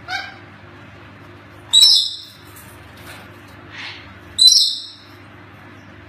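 Parrot giving two loud, high-pitched calls about two and a half seconds apart, each about half a second long, after a shorter, fainter call right at the start. A faint steady low hum runs underneath.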